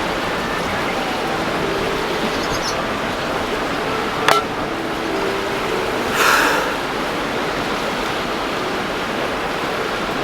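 Steady rushing wind noise, with one sharp click about four seconds in and a brief louder gust or rustle about six seconds in.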